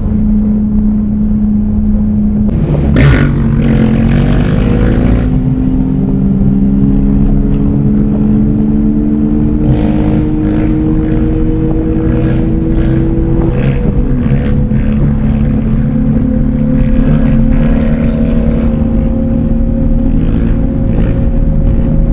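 Mini truck's small engine heard from inside the cab, pulling under load with its pitch climbing slowly as the truck gains speed. The pitch drops at a gear change about three seconds in and again near fourteen seconds. A short rush of hiss comes with the first change.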